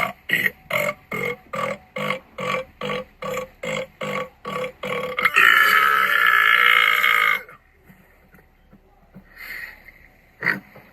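Belching: a rapid series of short belches, about three a second, for some five seconds, then one long, loud belch lasting about two seconds. A couple of faint short sounds follow near the end.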